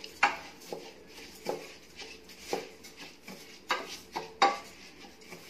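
Wooden spatula stirring basmati rice in a stainless steel pressure cooker, knocking and scraping against the pot's steel side in irregular sharp clicks, about one a second.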